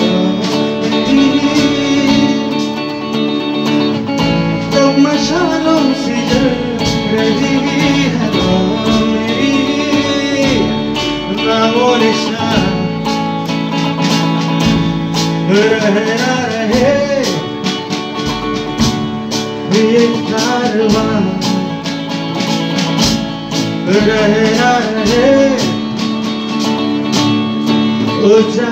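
Music: plucked guitar accompanying a singing voice.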